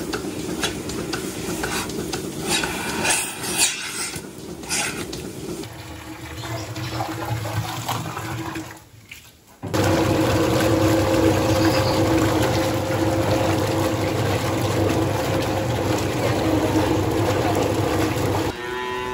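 Clinking and clattering of milking-parlour equipment as milking clusters are handled. After a brief drop, a steady electric motor hum with a low drone and two steady tones from a vertical stirrer mixing milk in a stainless-steel vat.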